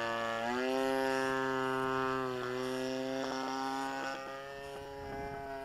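Engine and propeller of the small craft carrying the camera, droning steadily at one pitch with strong overtones. The pitch shifts slightly a couple of times as the throttle changes, and the drone grows quieter after about four seconds.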